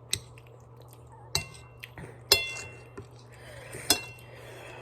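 Cutlery clinking against a dish of pasta casserole while eating: four sharp clinks spread over a few seconds, each ringing briefly.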